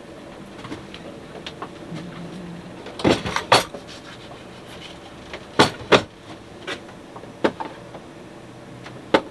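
Kitchen containers and utensils knocked and set down on a galley counter: a quick cluster of sharp knocks about three seconds in, a pair a couple of seconds later and a few single clicks after, over a steady low hum.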